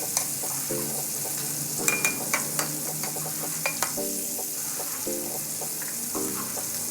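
Chopsuey vegetables and chicken liver sizzling as they are stir-fried in a pan, with a steady hiss and scattered clicks of the utensil against the pan. Faint background music plays underneath.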